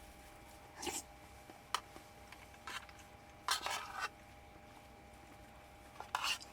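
Eating curry from a dish: a handful of short scrapes and clicks of a utensil against the dish, the longest scrape about halfway through, over a faint steady hum.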